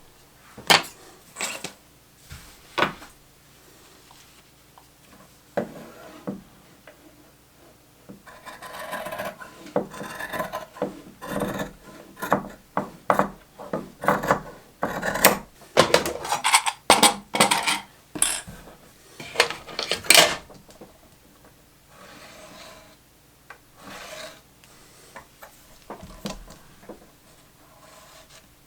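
Scissors cutting through denim fabric, with the cloth rubbed and handled on a work surface: a few sharp snips, then a busy run of clicks and scraping in the middle, and lighter rustling near the end.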